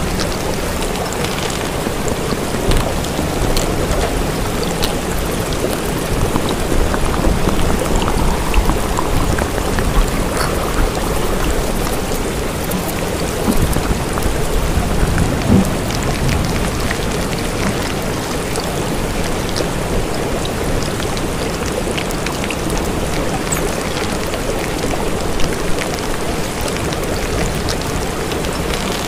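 Steady rain ambience: an even hiss of rainfall with scattered little drop ticks, unchanging throughout.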